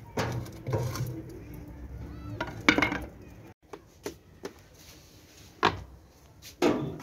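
Metal clatter as a sheet-metal bread peel is handled against a homemade barrel oven and raw loaves are slid onto its rack: scattered knocks and scrapes, with the sharpest knocks about a third of the way in and again near the end.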